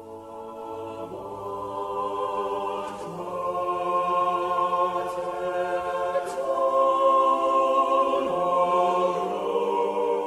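Slow choral intro music: voices singing long, held chords, fading in over the first few seconds, with the chord changing about a second in, around three seconds and again around eight seconds.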